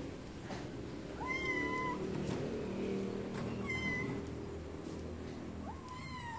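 A kitten meowing three times in high, short calls: once a little over a second in, once near the middle, and once more near the end. Faint clicks can be heard between the meows.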